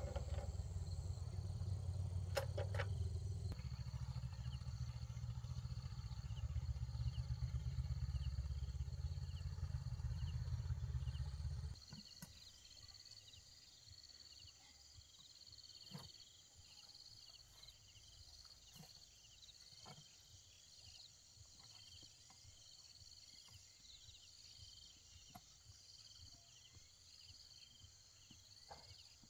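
Tractor engine idling with a low rumble that cuts off suddenly about twelve seconds in, leaving insects chirping steadily in the quiet, with a few faint ticks.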